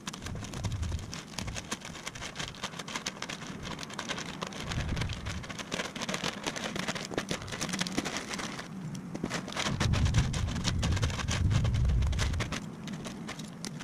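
Thick plastic packaging wrap crinkling and crackling as it is pulled off a kayak, with a few low thumps from the packaging being handled, heaviest a little after the middle.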